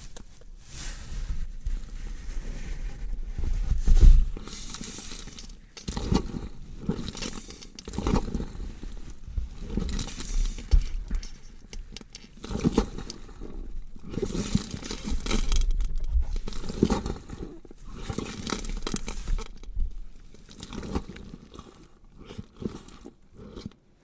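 Horror sound effect of meat being cut: irregular wet tearing, scraping and crunching strokes, with a heavier hit about four seconds in, thinning out near the end.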